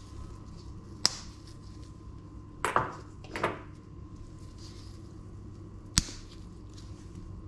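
Two sharp clicks and two short scraping rustles as a plastic flip-top spice shaker is handled over a stainless steel bowl, over a steady low hum.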